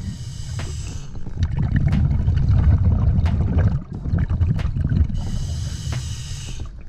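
Scuba diver breathing through a regulator underwater: a hissing inhale near the start and again near the end, with a low bubbling rumble of exhaled air in between. A few light clicks come through as well.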